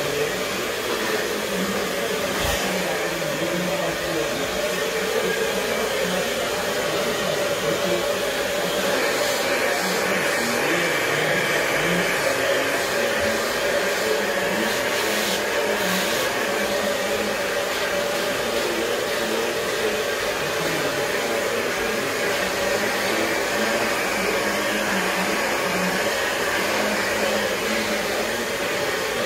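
Handheld hair dryer running steadily at a constant pitch, blow-drying hair.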